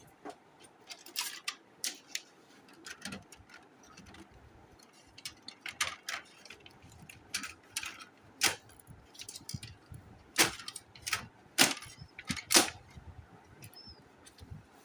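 Irregular sharp clicks and knocks of plastic toner-cartridge parts being handled and fitted, about a dozen scattered through, the loudest few in the second half.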